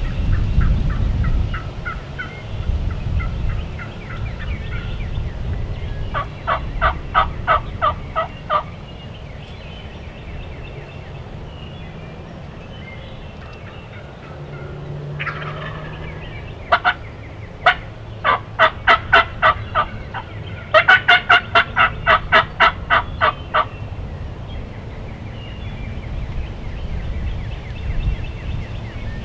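Wild turkey yelping: several runs of evenly spaced call notes, about three or four a second, the loudest runs coming after the middle, over a low steady rumble.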